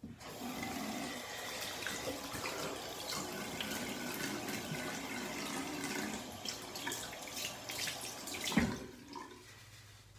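Bathroom sink tap running and splashing while a face is washed at the basin. The water stops near the end with a sharp knock.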